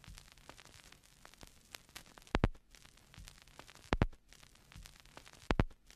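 Faint crackling static with a sharp double click that repeats about every second and a half.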